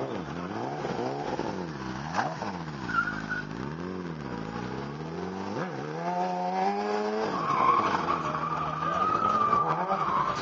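BMW S1000RR sport bike's inline-four engine revving up and down in repeated swells as the rider holds a wheelie, then held at high revs for about a second before dropping away. A long tyre squeal follows over the last few seconds.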